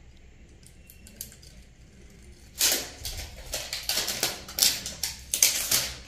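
A low room hum, then about two and a half seconds in a quick, irregular run of short, harsh clattering noises, about a dozen over the last three seconds.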